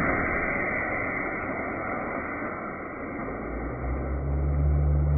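Blast of compressed air released to launch a small air-powered car, slowed down with the slow-motion footage into a long, dull rushing hiss. About three and a half seconds in, a low steady hum joins it.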